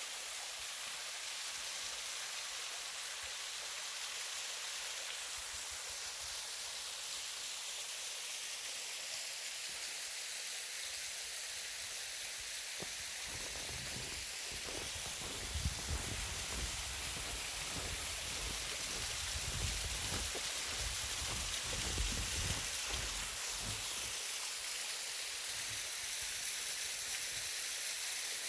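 Small waterfall splashing in a steady rushing hiss. Irregular low rumbles come in from about halfway through and fade out near the end.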